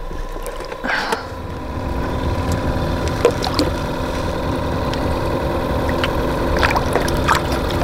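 Steady low hum of a small motor with water trickling, and a few light knocks.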